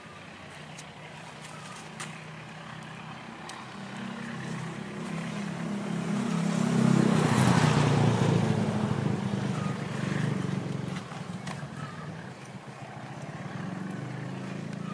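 Motorcycle engines passing: the sound swells over several seconds to a loudest pass about seven to eight seconds in, then fades, with another engine rising slightly near the end.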